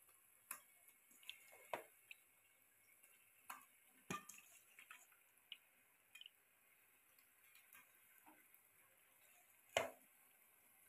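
Raw chicken pieces dropped by hand into thick masala gravy in a pressure cooker: a few scattered soft wet plops and light knocks, the loudest about four seconds in and again near the end, with near silence between.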